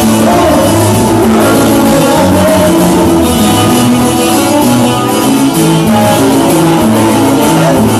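A band playing loud music with guitar.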